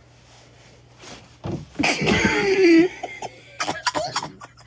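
A person's short, loud burst of wordless vocal noise about a second and a half in, lasting about a second and a half, followed by a few short clicks.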